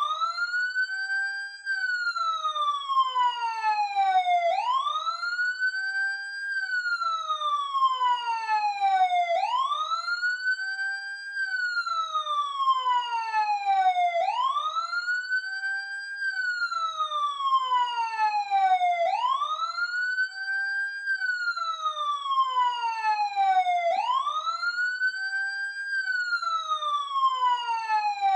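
Emergency vehicle siren wailing up close. Each cycle sweeps quickly up in pitch, holds a moment, then falls slowly, and repeats about every five seconds.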